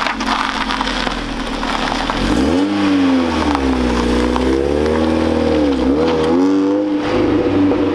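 Mazda Miata's four-cylinder engine idling, then revving as the car pulls away and accelerates, its pitch climbing and dropping twice with the gear changes.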